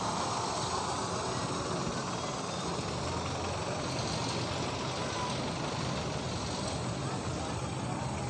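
Large passenger bus passing slowly at close range, its diesel engine giving a steady low rumble over road traffic noise.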